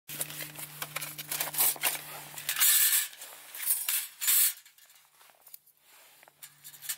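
Thin perforated steel plates of a folding stick stove clicking and scraping against each other as they are handled, with the fabric pouch rustling. Two louder rustling scrapes come about a third and about two-thirds of the way in.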